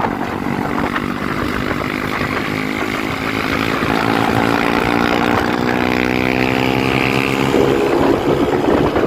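Honda CG Start motorcycle's single-cylinder engine, with an aftermarket exhaust, pulling under load, its pitch rising slowly, then turning rougher about seven and a half seconds in.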